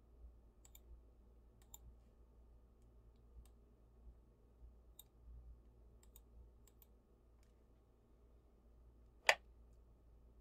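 Faint, scattered computer mouse clicks over a low steady hum, with one louder click about nine seconds in.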